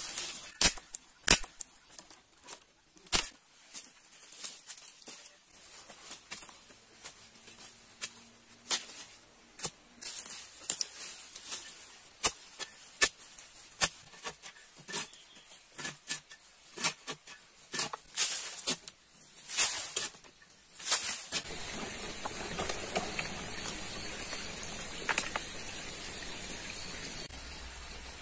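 A small hoe chopping into soil and leaf litter: sharp, irregular strikes about once a second. About two-thirds of the way through, the strikes stop and a steady hiss takes over.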